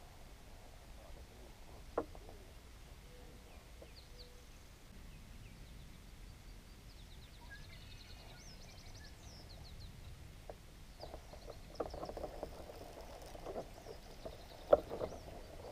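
Faint birds chirping and trilling, with a single sharp click about two seconds in. In the last few seconds, close clattering handling noise builds up, with a sharp knock near the end.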